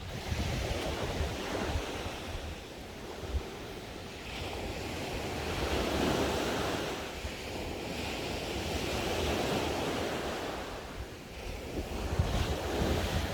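East Sea waves washing onto the shore, the surf swelling and fading every few seconds, with wind rumbling on the microphone.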